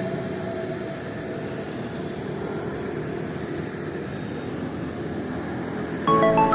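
Steady, even rumble of the fast ferry Majestic Kawanua II under way, its engines and rushing water blended into one noise. Music comes back in near the end.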